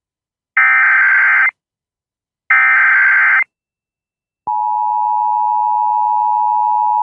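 Emergency Alert System tornado warning: two short digital data bursts of the SAME header, about a second each, with a second's gap between. About four and a half seconds in, the steady two-tone EAS attention signal starts and holds.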